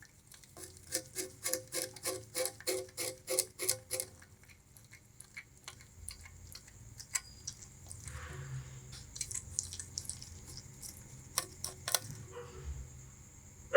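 Bamboo rat gnawing sugarcane: a quick run of crisp crunches, about four a second for the first four seconds, then slower, scattered crunches.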